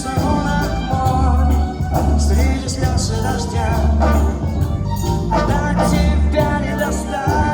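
Live band playing a pop song, with a steady pulsing bass and a melody line over it.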